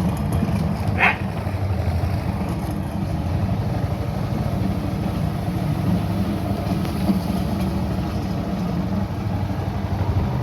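Small boat engine running steadily with a fast low throb, with one short dog yelp about a second in.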